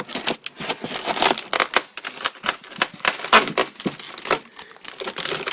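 Packing tape being cut and pulled off plastic packaging: irregular crinkling and crackling.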